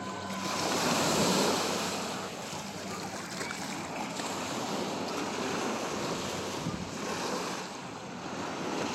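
Small waves breaking and washing up a sandy beach in a steady surf, loudest about a second in, with some wind on the microphone.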